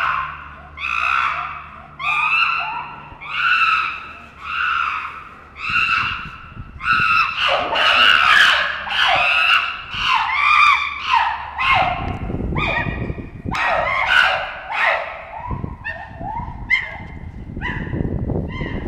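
Chimpanzees screaming in a fight: a regular series of rising-and-falling cries, about one a second, that turn denser and overlap from about seven seconds in, as more than one voice joins. A rough low noise runs beneath the cries from about twelve seconds in.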